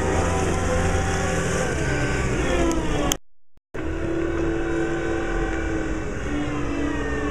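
Weidemann T6025 telehandler's diesel engine running as the machine drives, its pitch drifting up and down with engine speed. The sound cuts out for about half a second around three seconds in, then resumes.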